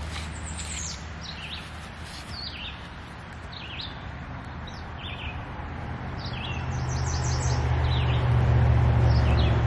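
Small birds chirping, short high calls repeated every half second or so, over a low steady hum that grows louder from about halfway through.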